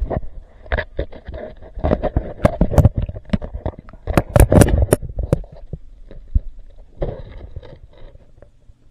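Pond water heard through a submerged camera: a muffled low rumbling broken by irregular sharp clicks and knocks, which cluster thickly between about two and five seconds in and die down near the end.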